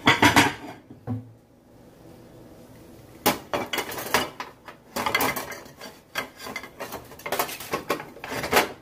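Dishes clattering: a plate being fetched and set down, with irregular clusters of sharp clinks and knocks and a short quiet stretch near the start.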